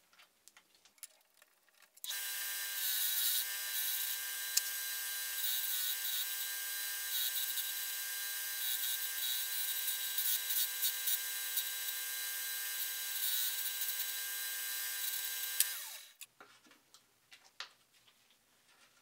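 Bench belt sander switched on about two seconds in, running steadily with a whine and a hiss while a steel sprocket on a pivot jig is turned against the belt to round its tooth tips. It is switched off near the end, and its pitch falls as it winds down.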